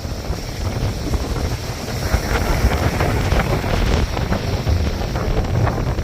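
Rough storm surf from a passing hurricane, waves breaking and washing in, with wind buffeting the microphone in a low rumble. The wash of the surf builds from about two seconds in.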